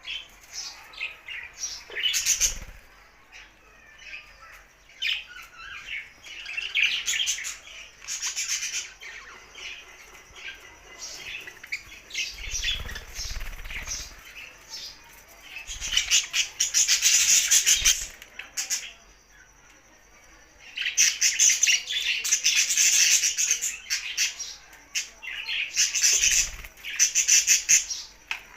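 Budgerigars chattering and chirping in rapid warbling bursts, with louder squawking stretches and a short lull partway through.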